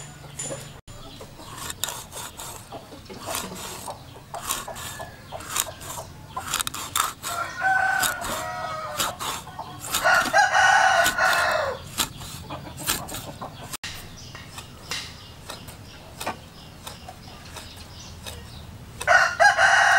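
A rooster crowing, loudest about ten seconds in, with other chicken calls before and near the end. Under it, short taps of a knife and cleaver on a wooden chopping board.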